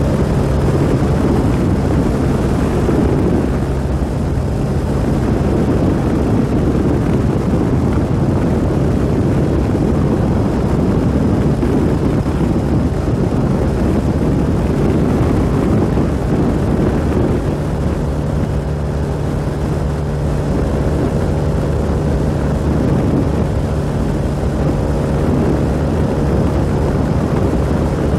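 1988 BMW R100's air-cooled flat-twin boxer engine running steadily while the motorcycle cruises at road speed, mixed with wind and road rush.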